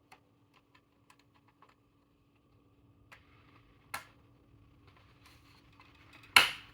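Light clicks and taps of small hard parts being handled, a quick run of soft ticks at first, then single clicks and a sharper knock near the end, over a faint steady hum.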